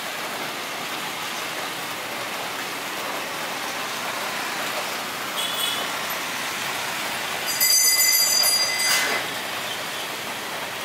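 Steady hiss of heavy rain. About five and a half seconds in there is a faint brief high squeal. About seven and a half seconds in a loud high-pitched squeal of several tones lasts about a second and a half, then stops suddenly.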